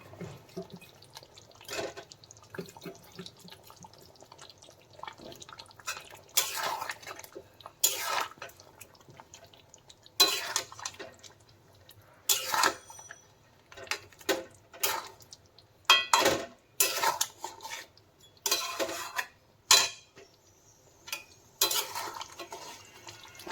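Irregular clanking and scraping of a metal spoon or spatula in a kadai, as potatoes are added to browning meat and stirred in, with a faint hiss of cooking beneath.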